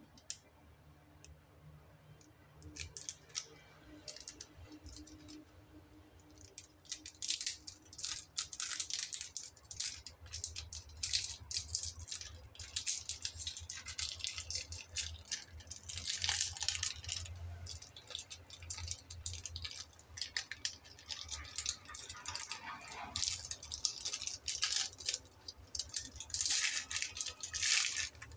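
Foil-lined wrapper of a chocolate wafer bar crinkling and crackling as it is torn open and peeled back by hand. The rustling starts sparse and turns into a busy run of crisp crackles after several seconds, loudest near the end.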